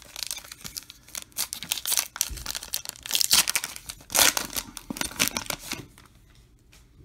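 A foil trading-card pack wrapper being crinkled and torn open by hand, with the loudest rips about three and four seconds in; the crackling dies down about six seconds in as the cards come out.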